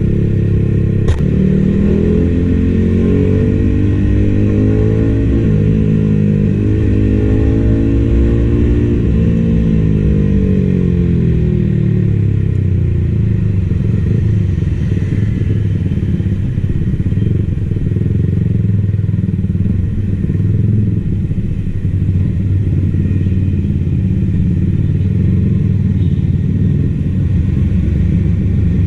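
Yamaha XSR155's single-cylinder engine rising and falling in pitch as it is revved up and eased off for the first dozen seconds, then settling into a steady low idle. A single sharp click about a second in.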